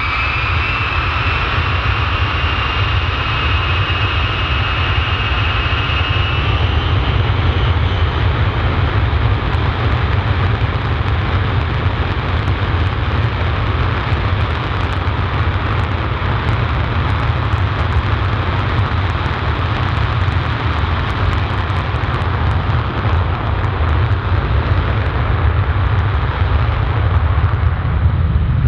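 Four Pratt & Whitney JT3D/TF33 turbofans of an E-8 Joint STARS running as the jet moves on the airfield. A high engine whine rises slightly in the first seconds and fades out about seven seconds in, leaving a steady deep rumble that grows louder near the end.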